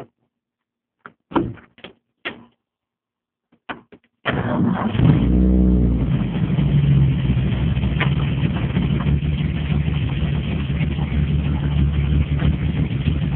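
A few separate knocks and clicks, then about four seconds in a freshly rebuilt Ford 300 (4.9 L) inline-six starts from cold. It catches at once with a brief rev that rises and falls back, then settles into a steady idle through a makeshift dual Magnaflow exhaust.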